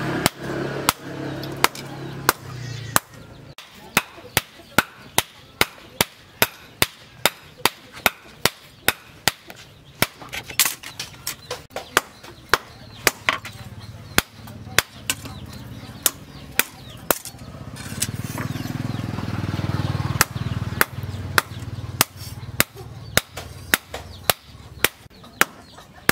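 Hand hammer striking a red-hot steel blade on a round steel anvil stake while forging it, in steady blows about two a second with a few short pauses.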